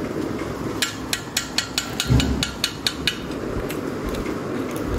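Kitchen utensil tapping during cooking: a quick run of sharp knocks, several a second, for about two seconds, then a few scattered taps, with one dull thump about two seconds in.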